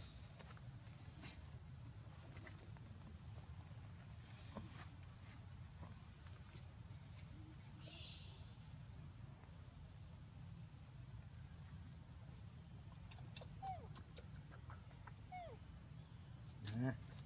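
Steady insect chorus holding two high tones over a low background rumble, with a few brief gliding squeaks from about two-thirds of the way in and a louder short squeal just before the end.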